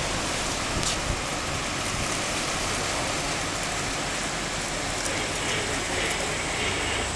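Steady rushing noise of wind and water on the open deck of a river ferry under way, with the low, even hum of its engine underneath.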